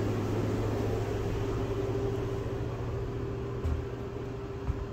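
Steady mechanical hum, a low drone with a higher steady tone above it, with a couple of faint knocks near the end.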